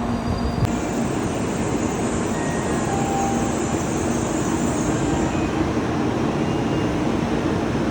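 Shinkansen train running noise: a steady low rumble and rush of air, with a high hiss that comes in about a second in and fades out a little past the middle.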